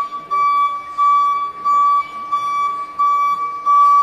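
Electric order-picker stacker's warning beeper sounding a steady, repeating beep, about one and a half beeps a second, while the machine is working with its operator platform raised.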